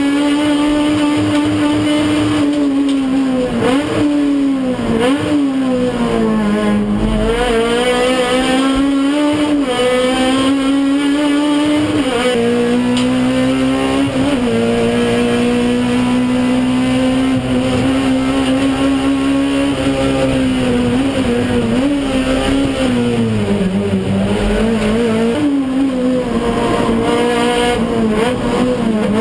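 Touring car's racing engine heard from inside the cockpit, running hard at high revs. Its pitch dips and climbs again several times as the driver lifts off and works through the gears for corners.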